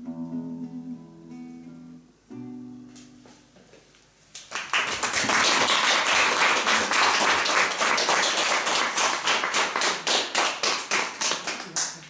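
An acoustic guitar plays the closing notes of a song, the notes ringing out and dying away. About four seconds in, an audience starts clapping, and the applause carries on loudly.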